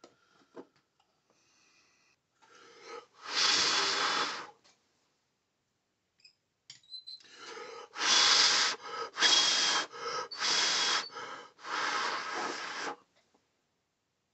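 A man blowing hard on freshly plastic-welded RC body plastic to cool it so the weld sets and sticks: one long blow about three seconds in, then four more in quick succession from about eight seconds.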